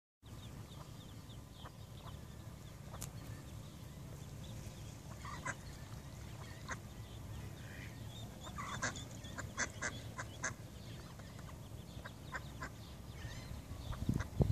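Faint duck calls: a scattering of short calls from a hen duck and her ducklings, most of them between about five and ten seconds in, over a steady low rumble that swells into louder bursts near the end.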